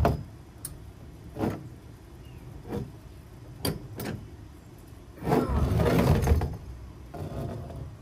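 Metal rods and frame parts of an animatronic being handled and fitted together: separate sharp clicks and knocks, then a louder stretch of rattling and knocking about five seconds in that lasts over a second.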